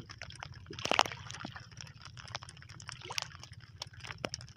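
Water splashing and dripping as a fishing hand line is hauled in over the side of a small wooden boat, with many small drips and ticks and a louder splash about a second in.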